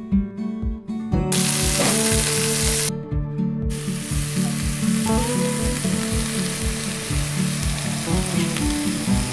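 Chopped leafy greens sizzling in hot oil in a black iron wok over a wood fire, stirred with a metal spatula. The loud sizzle starts about a second in, drops out briefly near three seconds, then carries on. Acoustic guitar music with a steady beat plays underneath.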